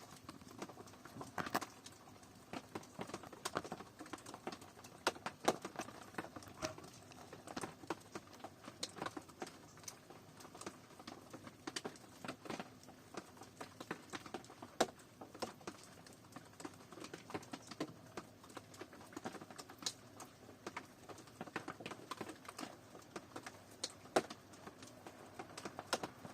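Rain falling steadily, with many irregular individual drops tapping sharply over the soft patter.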